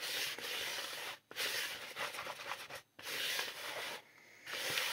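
Gloved hands mixing and rubbing damp bath bomb powder in a bowl: a gritty rubbing hiss in stretches of about a second with brief pauses between them.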